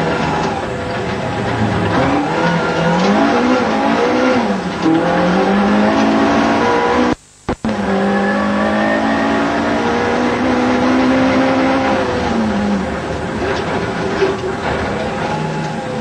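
Ford Escort Mk 2 rally car's engine heard from inside the cabin at stage speed, its revs climbing and falling again and again through gear changes. About seven seconds in the sound cuts out for half a second.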